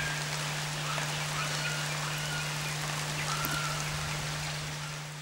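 Outdoor ambience: a steady hiss with a few short, high whistled calls from birds or frogs, over a steady low hum. It grows quieter near the end.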